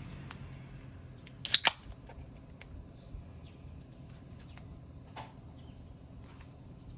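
Insects chirring steadily and high-pitched in the background. Two sharp clicks come close together about a second and a half in, and a fainter knock follows a few seconds later.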